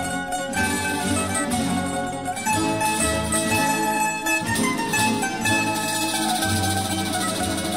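Background music played on plucked string instruments, a steady run of notes.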